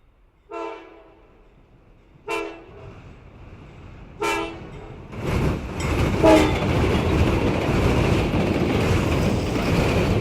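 Train horn sounding short blasts, three about two seconds apart and a fourth as the train arrives, followed by the loud, steady rumble of the train passing close by.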